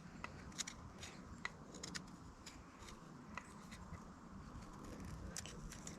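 Knife blade scraping along a fatwood stick to raise fine shavings for tinder: faint, irregular short scratches, a few each second.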